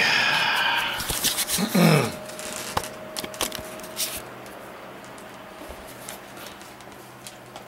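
Rustling and handling noise, then a run of sharp clicks and knocks as hands work at the top of a cardboard box; a brief voice sound about two seconds in, and a faint steady hum once the knocking dies down.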